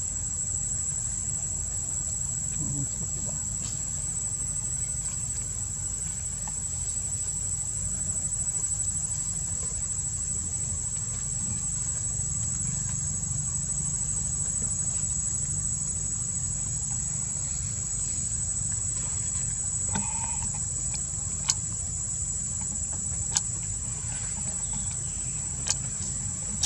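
Steady high-pitched drone of an insect chorus, with a constant low rumble underneath. A few sharp clicks come in the last several seconds.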